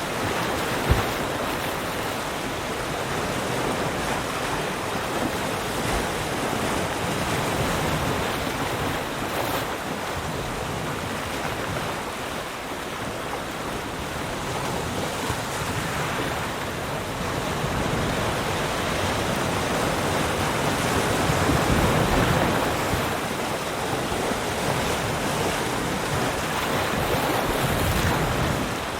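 Ocean surf: waves breaking and washing in as a steady rush, swelling louder around two-thirds of the way through and again near the end. A single sharp click about a second in.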